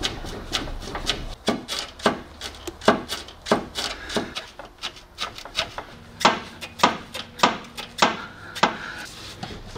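Repeated short knocks, about two a second, as a gloved hand shakes the front steering and suspension parts of a Volkswagen Jetta (tie rod and lower control arm) back and forth to check them for play.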